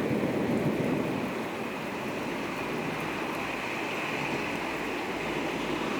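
Heavy rain pouring steadily in a thunderstorm, with the last of a low thunder rumble fading out in the first second.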